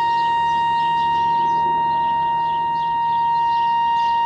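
Steady high-pitched audio test tone from the Nordmende Caruso tube radio's loudspeaker: the signal generator's modulation tone, demodulated from the FM signal. The tone holds a constant level and carries some distortion while an IF coil is being tuned for alignment.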